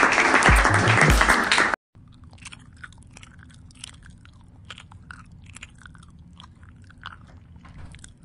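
Loud music cuts off suddenly about two seconds in. After that, a cat laps from a porcelain teacup: quick, irregular wet tongue clicks over a low steady hum.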